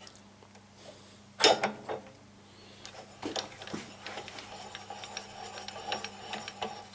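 Small metal lathe parts handled: a sharp metallic clack about one and a half seconds in, then a run of light clicks and rubbing from about three seconds on.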